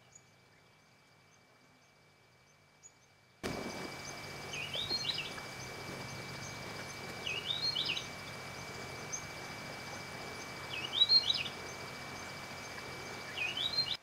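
A small bird singing a short rising, chirping phrase four times, about every three seconds, over a steady high-pitched drone; the sound comes in suddenly about three seconds in after near quiet.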